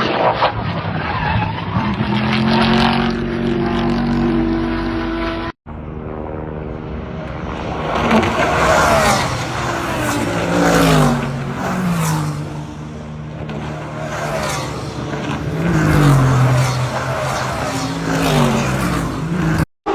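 Modified sports-car engines revving hard through loud exhausts, the pitch climbing and dropping several times, with crackling on the overrun. The sound cuts off abruptly about six seconds in and switches to another car revving.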